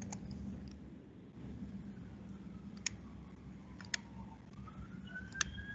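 Computer mouse clicking: three short, sharp clicks about a second apart against a faint steady room hum.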